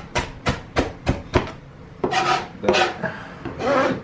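Knife chopping cilantro stalks on a cutting board, sharp chops about three a second, followed by a few longer scraping sounds of the blade working across the board.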